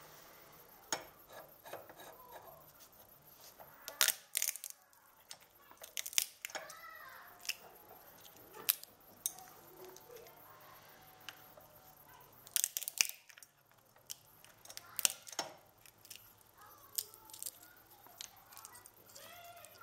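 Cracked walnut shells snapping apart by hand, with shell pieces clicking onto a wooden stump: sharp separate cracks and clicks every second or two, with a close cluster about two-thirds of the way through.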